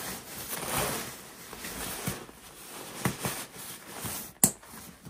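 Sleeping bag fabric rustling and swishing as the bag is crammed by hand into its stuff sack, with one sharp click or knock about four and a half seconds in.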